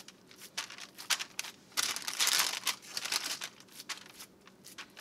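Parchment paper crinkling and rustling on a metal sheet pan as hands pat and shape a raw meatloaf on it, with irregular rustles and one longer, louder burst about two seconds in.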